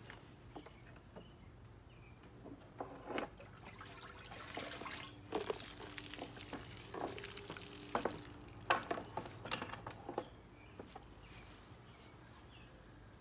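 Water splashing and dripping as a 9.8 Mercury outboard's lower unit is lifted out of a plastic barrel, with scattered knocks and clatters as the motor's clamp bracket is set against the barrel rim.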